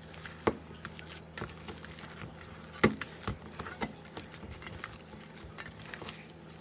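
A hand squishing and kneading raw ground-beef meatloaf mix in a stainless steel bowl: soft wet squelching with scattered sharp clicks, the loudest about three seconds in.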